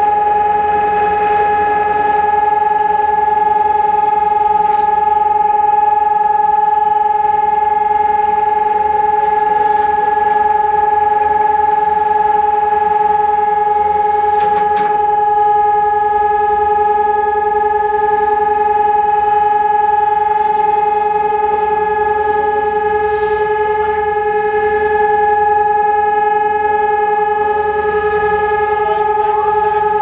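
Electronic civil-defence siren with stacked horn loudspeakers sounding a steady, unbroken tone at one pitch, with no wailing. This is the continuous test tone of a scheduled siren test.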